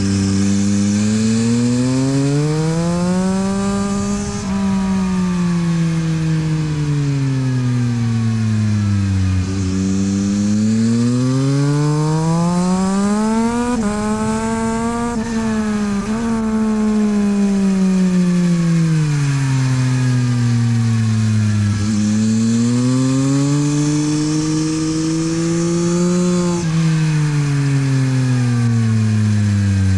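Yamaha MT-09 SP's 890 cc inline-three engine through a LeoVince exhaust at full track pace: revs climb hard under acceleration with brief drops at the upshifts, then fall away under braking and downshifts into the corners, several times over.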